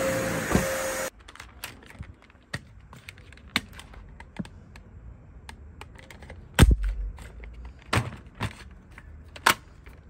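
Dyson DC41 Animal upright vacuum running with a steady whine, cut off abruptly about a second in. Then a series of sharp clicks and knocks of hard plastic parts as the clear dust bin and cyclone are handled and taken apart, with one louder knock and thud near the middle.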